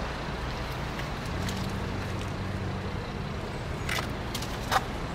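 Steady low hum of a running vehicle engine amid road traffic noise, with a couple of short light clicks about four seconds in.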